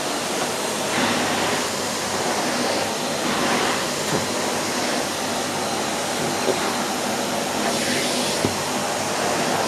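Henry HVR 160-11 bagged cylinder vacuum cleaner's 620-watt motor running steadily, a constant rushing noise with a faint hum.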